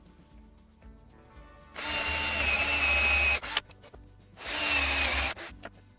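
Electric drill in a drill guide boring into wood, run twice: a steady motor whine for about a second and a half, then again for about a second near the end, its pitch dropping as the motor winds down after each run.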